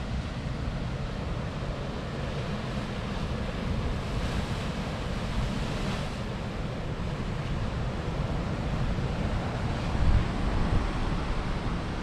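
Ocean waves surging and breaking against a rocky shoreline, with wind rumbling on the microphone.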